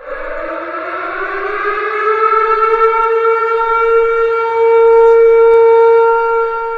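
Civil defense siren sounding an attack warning. It starts suddenly and winds up in pitch over the first couple of seconds, then holds one steady wail that fades near the end.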